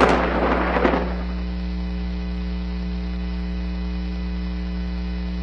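The noisy crackle after a nearby lightning strike dies away in the first second, leaving a steady electrical mains hum with a buzz of many overtones.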